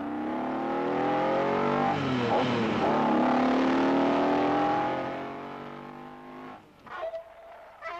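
Sports car engine revving hard at speed, its pitch falling and rising again about two seconds in, then fading away. Near the end there are two sharp knocks, and a thin ringing tone lingers after the second.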